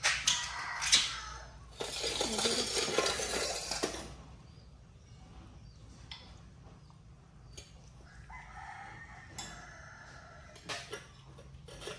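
A rooster crowing once, a call of about two seconds starting a couple of seconds in. Sharp metallic clinks from the animals' steel food bowls come just before it.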